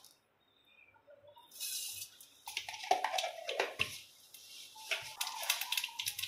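Mustard seeds sizzling in a pan of hot oil. It starts about a second and a half in, and sharp crackles grow denser as the seeds begin to pop.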